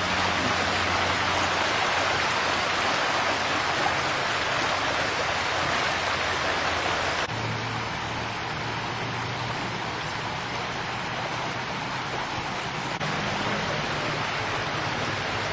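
Flash-flood water rushing steadily over a flooded road and through plantation land. The noise drops a little at a cut about seven seconds in.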